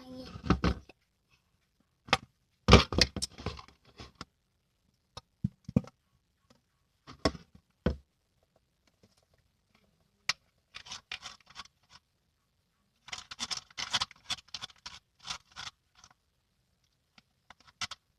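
Clear-glue slime being stirred in a container: scattered scrapes and knocks of the stirrer against the container, then denser runs of sticky scraping in the second half. The stirring works freshly added clear glue into the activated mix.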